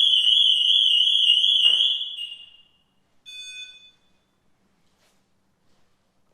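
Motorhome alarm siren sounding a loud, high-pitched fast warble after a wireless door sensor on the garage door sets it off. It cuts off about two seconds in, and a short beep follows about a second later.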